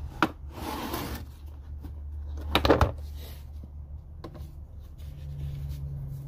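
Blow-moulded plastic socket case being handled and opened: a click, a short rustle, then a quick cluster of sharp plastic snaps about two and a half seconds in as the latches pop open, under a steady low hum.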